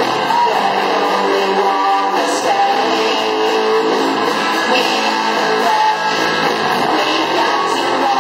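School rock band playing live, a guitar carrying the song, with some singing.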